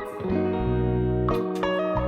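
Background music with plucked guitar over a steady bass line.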